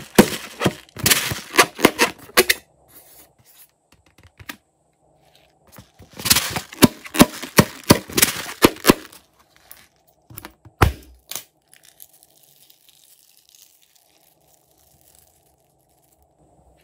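Slime being squeezed and pulled by hand: two runs of dense sticky crackles and pops, near the start and again about six seconds in, then a single thud.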